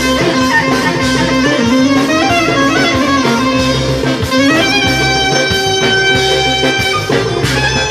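Greek folk instrumental music from clarinet, bouzouki and percussion, played live. The clarinet winds through an ornamented line over the plucked bouzouki and a steady drum beat, then holds a long note from about halfway until near the end.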